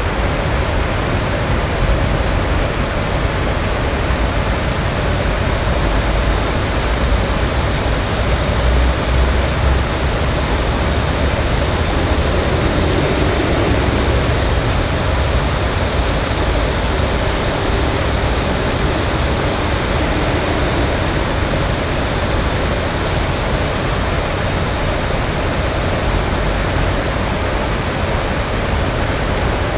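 Steady city roar of distant traffic, a continuous low rumble with no single passing vehicle standing out. A high, even cicada buzz rises above it from about two seconds in.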